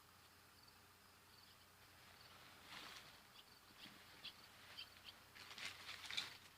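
A person with allergies sniffling: a run of short sniffs starting about two and a half seconds in. A faint, repeating high chirping sits in the background.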